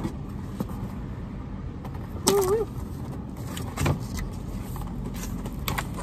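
Cardboard box and packing being handled: a few sharp knocks and scrapes, with a brief wavering squeak about two seconds in. A steady low rumble of traffic lies underneath.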